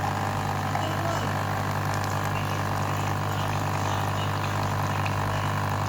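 Small electric pump motor running with a steady low hum, switched on just before.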